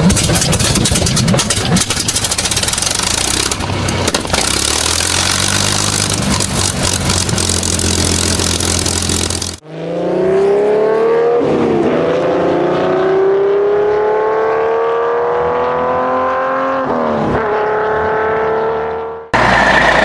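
Two different engines running, one after the other. The first runs loud and rough with a clattery low hum. After an abrupt change about halfway, a second engine revs up with a steadily rising pitch that drops sharply and recovers twice, the way it does at gear changes.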